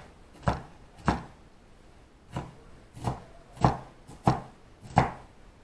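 Knife chopping vegetables on a cutting board: seven separate strokes, about one every two-thirds of a second, with a short pause after the second.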